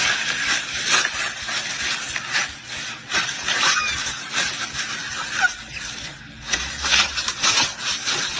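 Irregular crinkling and scraping of a cardboard food box and its paper lining as a baby rummages through the food inside.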